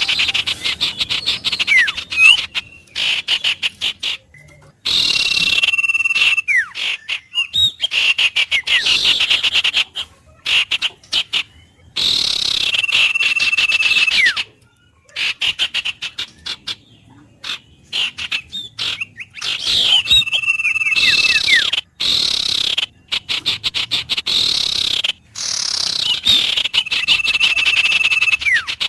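Frogs and birds calling together in bursts a few seconds long with short gaps between them. The bursts are runs of rapid pulsed calls, mixed with held whistled notes and short downward-sliding calls.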